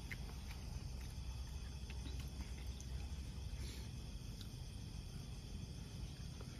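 Crickets chirping faintly over a steady low background rumble, with a few faint clicks.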